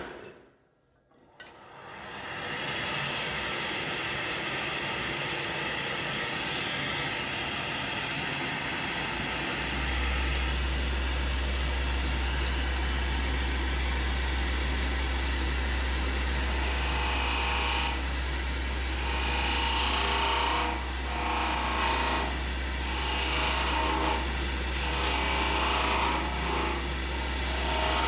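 Wood lathe starting up and running, then a parting tool cutting into a spinning mahogany blank to reduce its diameter. The cutting comes as uneven scraping strokes from about halfway through. A low steady hum joins about ten seconds in.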